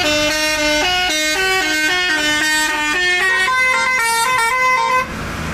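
Tourist bus's 'telolet basuri' musical horn playing a quick tune of short stepped notes, cutting off suddenly about five seconds in.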